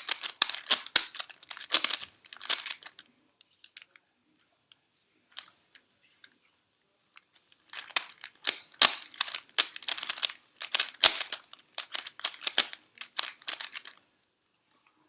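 Plastic V-Cube puzzle cube being turned by hand in quick runs of sharp clicking layer turns: about three seconds of turning, a pause of about four seconds, then about six seconds more.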